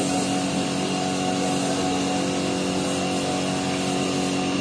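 Gondola ropeway station machinery running: a steady mechanical hum with several constant tones as the haul rope and station wheels turn and the cabins move through the station.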